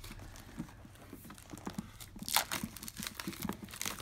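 Plastic shrink wrap being torn open and peeled off a board game box. Faint handling rustles at first, then louder crinkling from about halfway through.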